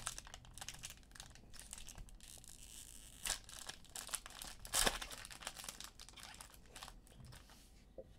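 Foil wrapper of a baseball card pack crinkling as it is torn open by hand, with two sharper crackles about three and five seconds in.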